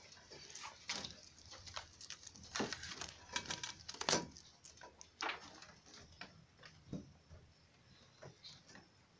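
Scattered light knocks, scratches and rustles at wooden, wire-fronted rabbit hutches, irregular in timing, the loudest about four seconds in.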